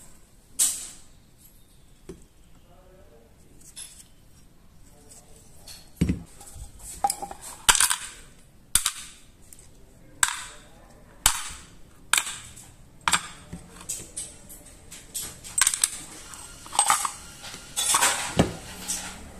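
Small steel pistol parts clicking and clinking as they are worked off a Jericho 941 slide and dropped into a parts cup: a sharp click about half a second in, then a run of clinks roughly once a second from about six seconds on.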